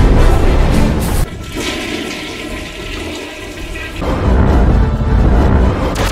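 Loud rushing, rumbling sound effects with music beneath. The noise drops away suddenly about a second in, leaving quieter sustained tones, then surges back at about four seconds.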